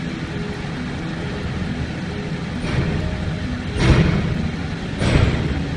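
Lorry engine rumbling steadily at low speed, with two louder rough noise surges about 4 and 5 seconds in.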